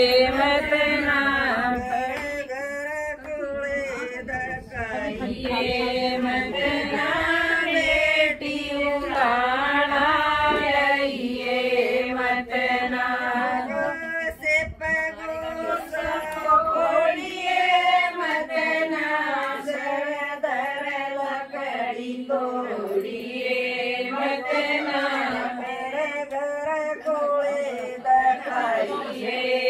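Women singing a traditional folk song (geet) together in Hindi-Haryanvi, in long, wavering sung lines with no instruments.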